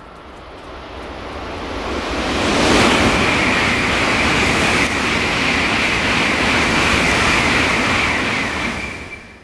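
N700-series Shinkansen passing through a station at high speed without stopping. Its rushing noise builds over about three seconds, holds steady for about six seconds as the train sweeps past, then drops away near the end.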